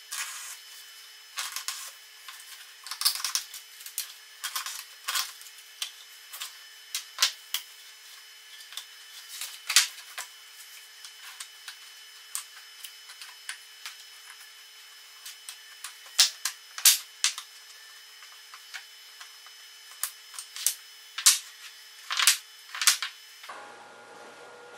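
Irregular clicks, taps and scraping as small plywood blocks and leather pads are handled and set down on a plywood workbench, with a utility knife cutting leather at first. Near the end the taps stop and only a faint steady hum remains.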